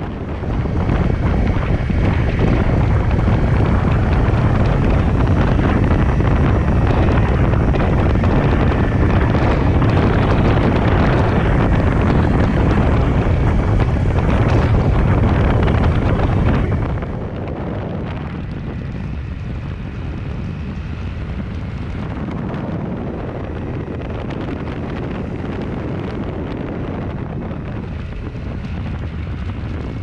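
Wind rushing over the camera microphone while riding a Honda CRF250 Rally motorcycle. It is loud for the first sixteen seconds or so, then drops suddenly to a lower, steady rush.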